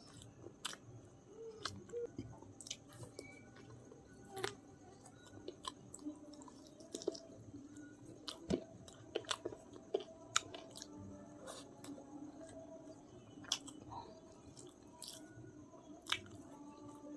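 A person chewing a mouthful of chicken biryani close to the microphone, with frequent irregular sharp mouth clicks and smacks.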